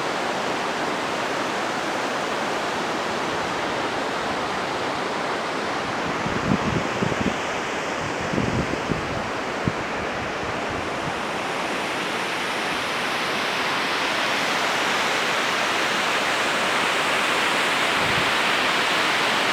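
Waterfall: a steady rush of falling water that grows louder and brighter in the second half. A few low bumps on the microphone come partway through.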